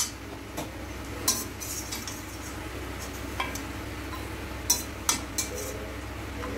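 Steel slotted spoon scraping and clinking against a stainless steel kadai and a small steel bowl while fried cashews and raisins are scooped out of the ghee. It comes as a handful of separate sharp clinks a second or so apart.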